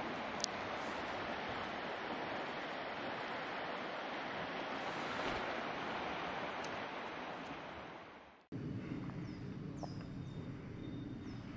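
A steady rushing noise that fades out about two-thirds of the way through. A lower, rougher rushing noise then starts suddenly, with a few short, high, falling chirps over it.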